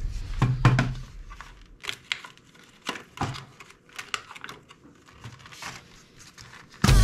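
Plastic toy ball-shooting rifle being handled and loaded with foam balls: scattered light clicks and knocks of plastic, with some crinkling.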